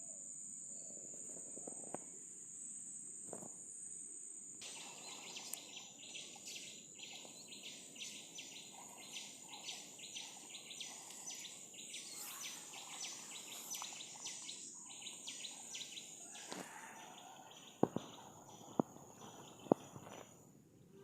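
Insects, crickets among them, making a steady high-pitched drone, joined for most of the middle by a rhythmic chirping at about two pulses a second. Near the end come a few sharp clicks.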